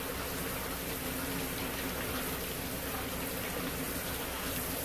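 Tap water spraying steadily from a spray-head faucet onto rubber-gloved hands and a plastic cutting board, an even hiss of running water, with a faint steady low hum underneath.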